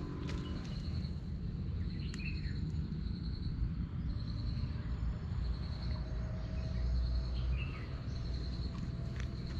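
Insect trilling in a high, pulsing buzz that breaks off and starts again several times, over a steady low rumble, with a few short bird chirps.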